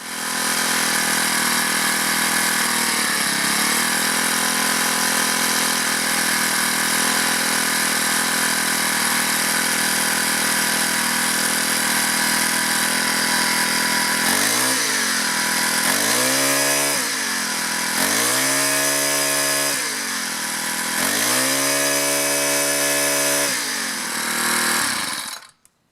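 Craftsman four-stroke string trimmer engine running steadily at high speed, then throttled down and revved back up about four times. It cuts off suddenly near the end. Freshly cleaned and carburetor-adjusted, it is running well.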